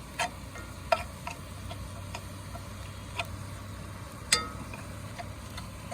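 Ground bison browning in a pan while being stirred: scattered sharp clicks and taps, the loudest about four seconds in, over a low steady hum and faint sizzle.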